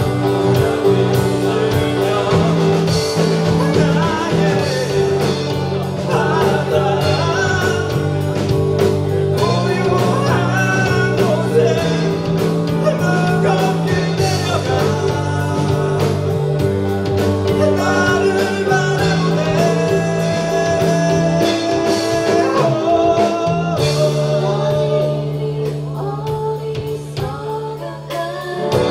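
Live amateur band performing a pop song: a singer over electric guitar, bass and drums.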